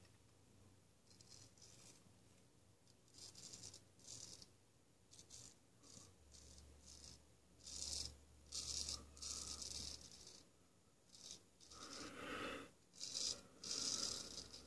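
Ralf Aust 5/8 round-point straight razor scraping through lathered stubble on the jaw and neck in short strokes: faint crackling scrapes, sparse at first and coming faster and louder in the second half.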